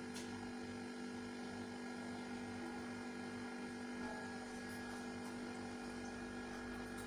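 A steady hum made of a few fixed tones, even in level, like an electrical appliance or mains hum.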